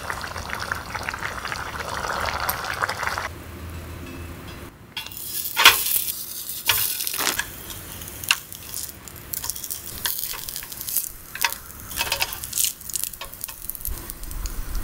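Kimchi stew bubbling in a metal mess tin on a portable gas burner, then potato pancakes sizzling in the mess tin's lid with a wooden spatula scraping and tapping against the metal. The sharp scrapes and taps come from about five seconds in, over the steady frying.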